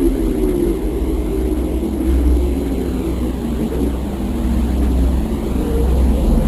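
Low, steady drone presented as the sound of Earth heard from space, a space recording turned into audio, with a faint wavering hum in it and no distinct events.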